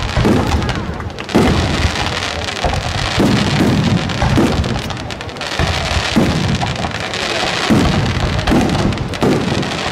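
Aerial firework shells bursting one after another in a dense barrage: a continuous crackle over deep booms that come about once a second.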